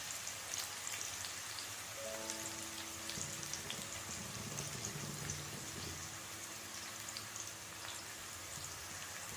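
Food sizzling in hot oil in a cooking pot: a steady frying hiss with fine crackles.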